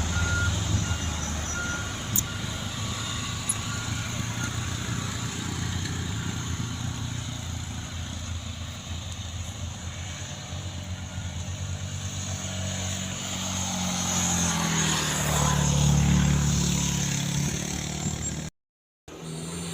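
Heavy truck engine running, with a string of short beeps in the first few seconds. The engine grows louder about three-quarters of the way through, then the sound cuts out for a moment near the end.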